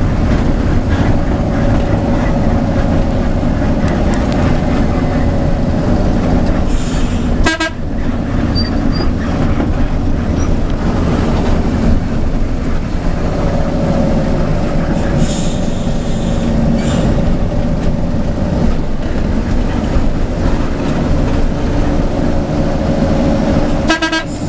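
Front-engined bus's diesel engine running under way, heard from the front of the cabin, with steady road noise. Short horn toots about seven seconds in and again near the end.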